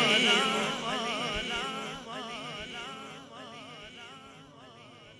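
A man's voice holding a long sung note with wide vibrato, fading away through sound-system echo until only a faint tail remains.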